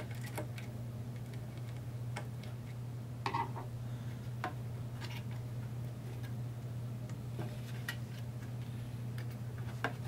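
Scattered light clicks and ticks of a small screwdriver and fingers working the CPU heatsink's hold-down screws loose on a laptop motherboard, over a steady low hum.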